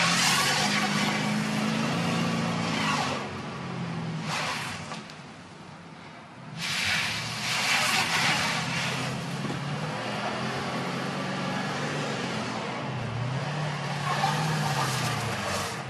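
A stuck van's engine revving up and down in repeated surges, each with a loud rushing hiss of wheels spinning in snow.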